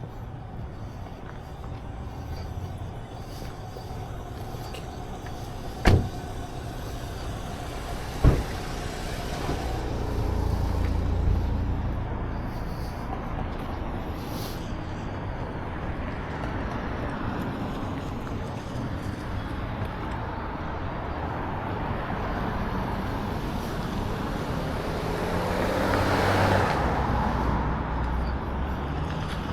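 Cars driving past, one swelling up and fading away near the end, over steady traffic noise. Two sharp knocks about six and eight seconds in.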